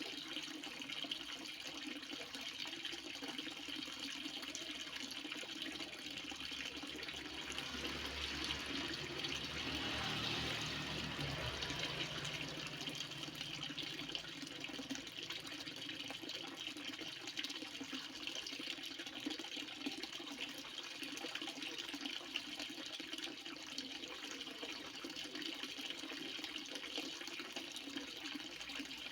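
A heavy stream of water pouring and rushing steadily, swelling louder with a deeper rumble about a third of the way in before settling back.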